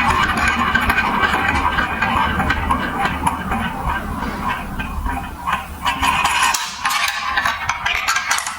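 Many marbles rolling along a plastic building-block marble run, a continuous rumble with dense clicking and clattering; it thins out about two-thirds of the way through.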